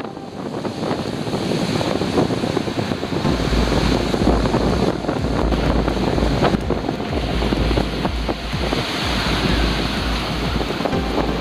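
Wind buffeting the microphone over surf breaking on a sandy shore; a low wind rumble sets in about three seconds in and comes and goes.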